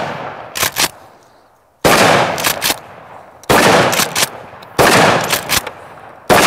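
Remington Tac-14 12-gauge pump-action shotgun firing buckshot: four loud shots a second and a half or so apart, each echoing away and followed by the short double clack of the pump being racked. At the start the echo of a shot just fired is still dying away.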